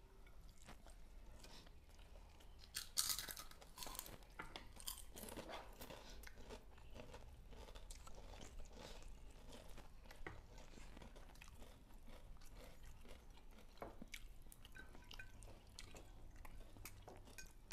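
Close-miked chewing and crunching of a fried-fish and rice meal eaten by hand, with scattered small clicks throughout and a louder burst of crunching about three seconds in.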